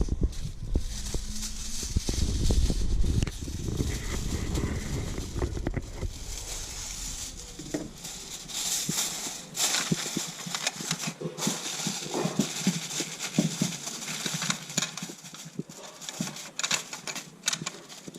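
Aluminium foil crinkling and rustling in irregular crackly clicks as it is handled over a baking tray. A low rumble of wind on the microphone runs under the first half and drops away about eight seconds in.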